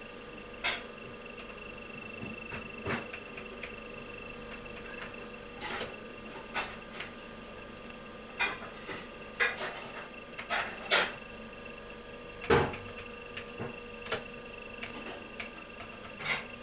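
About a dozen sharp cracks and knocks at irregular intervals, the loudest about three-quarters of the way through, over a steady background hum.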